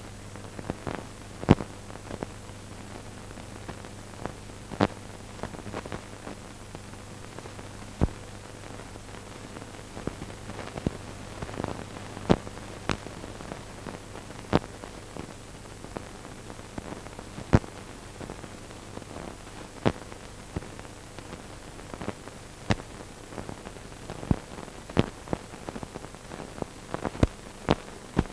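Surface noise of a worn old film soundtrack with no speech or music: a steady hiss and low hum broken by irregular crackles and sharp pops.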